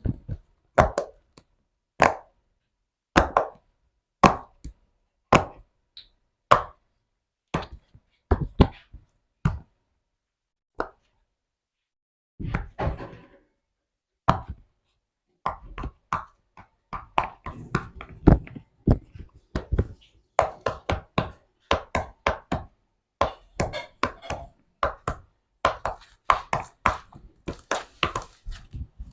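Slime being handled, making a series of short pops and taps. They come about once a second at first, then faster and close together in the second half.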